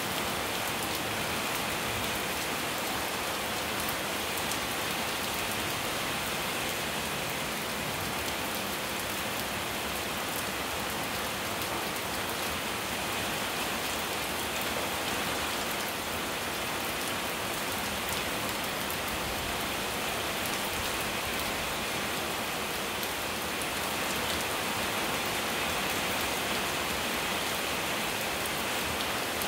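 Steady rain falling on a paved lane and the leaves of trees, a dense even hiss that grows a little louder near the end.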